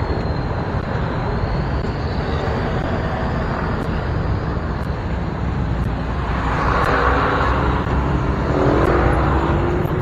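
City traffic at a standstill: motorcycle and scooter engines idling close by, with a steady low rumble and general road noise. Near the end one engine rises in pitch as it revs.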